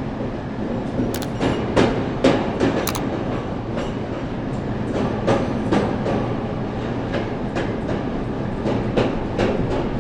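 Train rolling along the track: a steady rumble with the wheels clacking over rail joints at irregular intervals of roughly half a second to a second.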